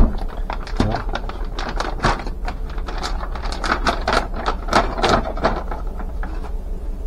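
Bags of Korean frying mix and pancake mix being handled and unrolled: the packaging crinkles and rustles in dense, irregular crackles, with a knock right at the start.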